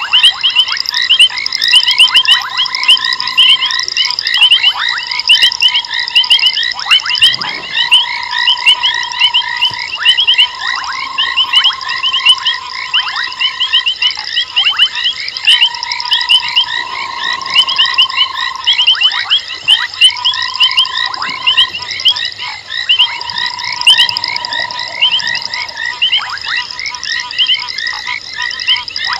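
Night chorus of frogs: a dense mass of rapid, repeated chirping calls over a steady trill-like note that is held for a second or two at a time and repeats with short breaks.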